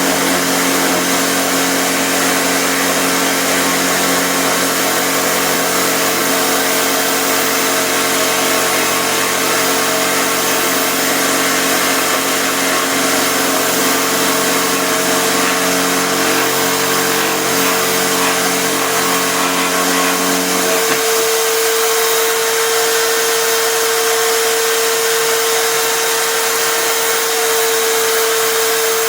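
Electric drill mounted as the motor of a DIY router table, running continuously with a steady whine over a noisy hiss. About two-thirds of the way through, the lower hum drops away and the higher whine carries on alone.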